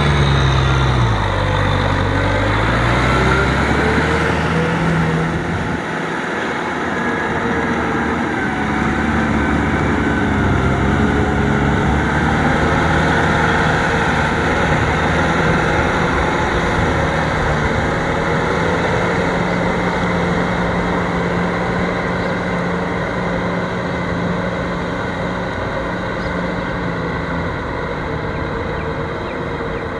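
Kubota M6040SU tractor's four-cylinder diesel engine working under load as it pulls a rotary cultivator through deep mud and water. The engine speed dips and recovers in the first few seconds, then holds steady.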